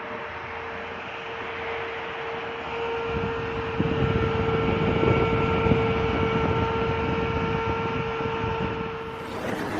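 A 12 V DC fan running: a steady hum with a rush of air that grows louder about three to four seconds in, then eases off near the end.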